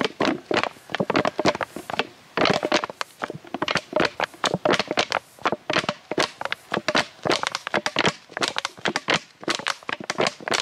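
Thin plastic drinks bottle crinkling and crackling as hands squeeze and release it, a dense run of irregular sharp clicks and pops. The squeezing pumps air through the lit cigarette in its cap, drawing smoke into the bottle.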